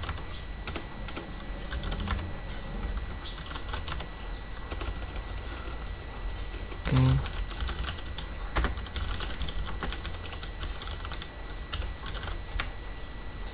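Typing on a computer keyboard: irregular keystroke clicks as a terminal command is entered, with one louder, brief, low-pitched sound about seven seconds in.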